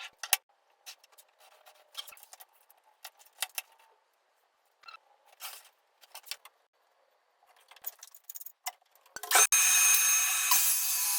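Scattered faint clicks and scrapes of tools and wood being handled. About nine seconds in, a power saw starts up and runs steadily, cutting through wood.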